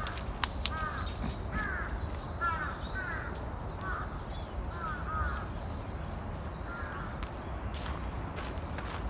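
Crows cawing: a series of about a dozen short calls, often in quick pairs, stopping about seven seconds in, over a steady low rumble.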